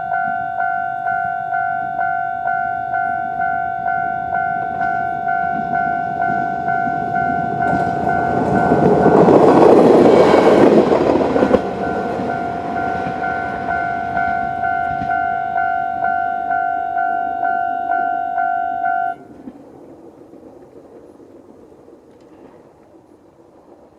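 Level-crossing warning bell ringing in a steady repeated ding while a Moka-14 diesel railcar passes over the crossing, loudest about ten seconds in. The bell cuts off suddenly about nineteen seconds in, leaving a faint rumble.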